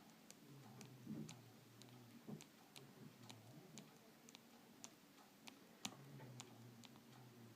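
Faint light ticking clicks, roughly two a second, over near silence.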